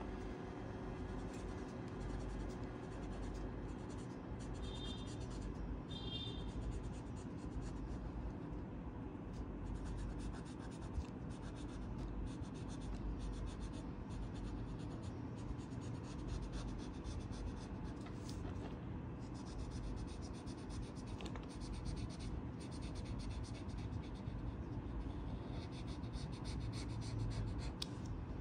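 Felt-tip marker scratching across paper in quick, continual short strokes as an outline is coloured in.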